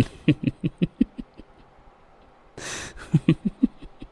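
Someone laughing hard: two quick runs of short 'ha' pulses, about six a second, with a sharp breathy gasp between them.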